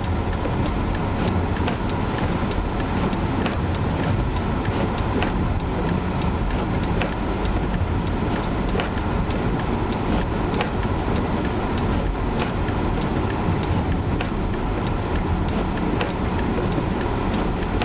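Chevrolet Malibu Classic driving, heard from inside the cabin: a steady low rumble of engine and tyres, with scattered light ticks throughout.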